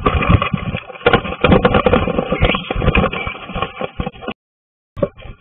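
Two lovebirds fighting inside a wooden nest box: wings beating and bodies and claws scuffling and knocking against the wood and nesting straw, close to the microphone. The sound cuts out for a moment about four seconds in.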